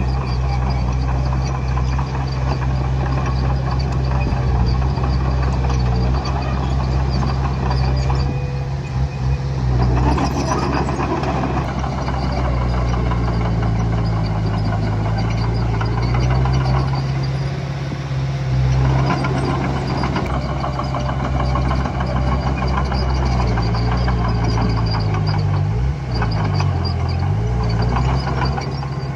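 Diesel engine of heavy earthmoving machinery running steadily, its pitch dipping and rising again near the end. Rougher, louder noise rides over it for stretches about a third and two-thirds of the way through.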